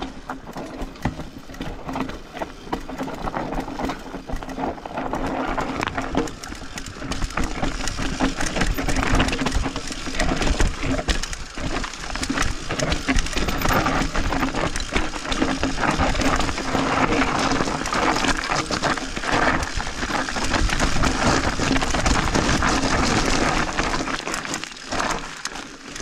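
Trek Slash 8 full-suspension mountain bike descending fast over loose rock and gravel: tyres crunching, with the bike rattling and knocking over the rocks.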